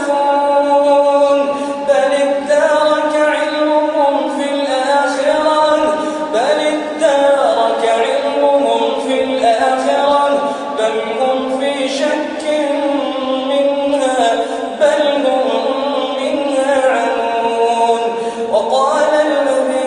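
A solo male voice reciting the Quran in a melodic chanted style, with long held, ornamented notes and a few upward pitch glides as new phrases begin.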